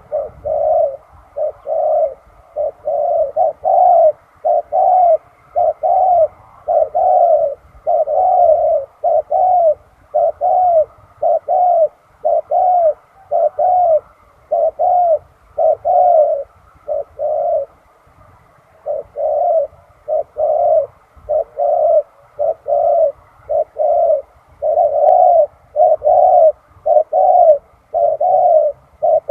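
Spotted dove cooing over and over, a long steady series of low coos that breaks off briefly a little past halfway and then resumes.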